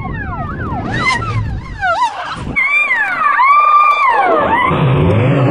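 Fire engine siren sounding in quick rising-and-falling yelps, then switching to slower, longer wails about two and a half seconds in, over a low rumble.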